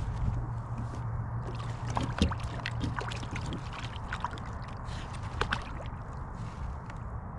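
Water sloshing and gurgling against a kayak hull under a steady low rumble, with scattered small clicks and knocks, the sharpest a little past two seconds in.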